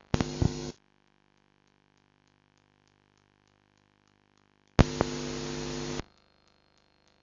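Aiwa VCR playing the blank gap between two recordings on a VHS tape: a short burst of static with mains hum at the start, and a second, longer burst about five seconds in that lasts about a second. Between the bursts there is only faint hum and faint ticking at about four a second.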